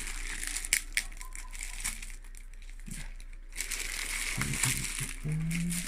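Packaging rustling and crinkling as a playmat is taken out of a trading-card collection box, with scattered light clicks and taps; the rustling grows denser about halfway through.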